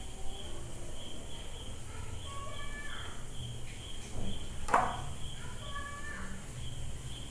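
Cricket chirping steadily in the background, a high pulsing trill, with one sharp knock about two-thirds of the way through.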